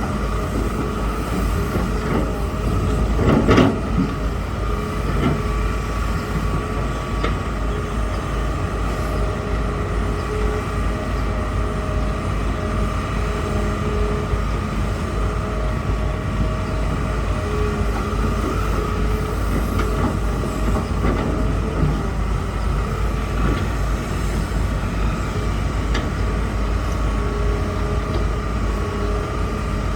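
Hitachi hydraulic excavator running and working: a steady low rumble with faint steady whines over it, and one louder knock about three and a half seconds in.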